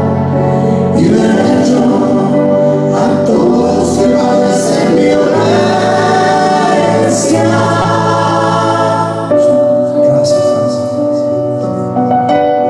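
Mixed men's and women's voices singing a hymn in harmony into microphones. In the last few seconds they hold a long note.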